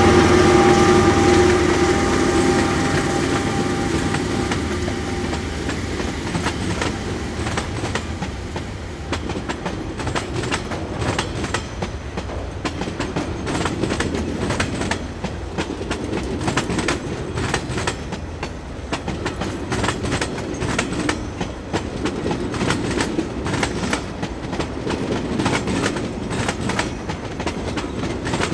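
A train passing close by. The locomotive's steady hum fades over the first few seconds, then the cars' wheels clatter over the rail joints in a long run of clicks.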